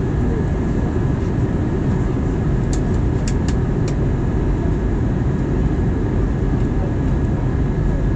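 Steady cabin roar inside an Airbus A320 airliner on its descent, jet engines and airflow heard from a window seat, with a faint steady whine over it. A few light clicks come about three seconds in.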